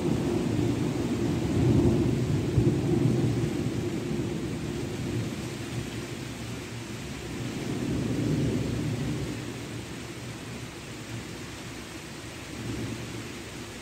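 Thunder rumbling in long rolls, loudest about two seconds in, swelling again around eight seconds and briefly near the end, over a steady hiss.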